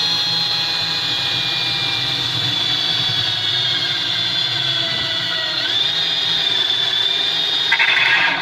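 Electric drill spinning a 54 mm hole saw into the timber of the cabinet base, a steady motor whine that dips slightly in pitch as it bites a little past halfway, with a rattling chatter near the end.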